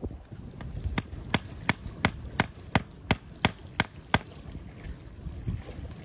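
Hatchet chopping wood: about ten sharp, evenly spaced blows, roughly three a second, that stop about four seconds in, over a low rumble of wind.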